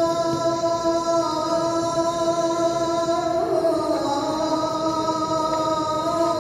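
A muezzin's voice calling the adhan, the Islamic call to prayer, in a long drawn-out chanted note. About three and a half seconds in, the note bends and settles slightly lower and holds on.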